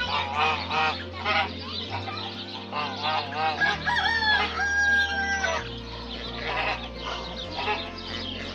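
Chickens clucking in quick, repeated short calls, with a rooster crowing once about four seconds in, a long call lasting about a second and a half.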